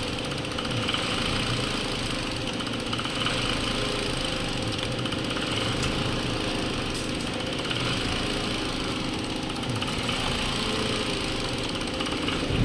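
Hyundai Accent 1.4-litre four-cylinder petrol engine idling steadily. The rough idle comes from misfiring ignition coils.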